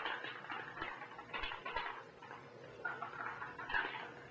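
Aerosol spray paint can spraying gray paint in several short bursts, light strokes over a leaf stencil.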